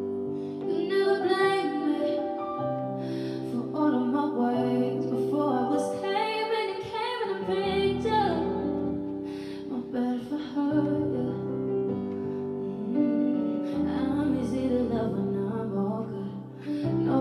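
Live R&B song: a woman singing wordless, winding vocal runs over sustained keyboard and bass accompaniment.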